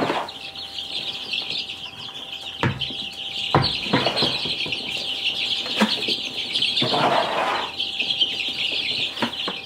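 A brooder full of baby chicks peeping in a steady, dense chorus. Over it come several short scrapes and rustles of a plastic scoop digging into wood shavings and tipping them into a plastic bucket, the longest about seven seconds in.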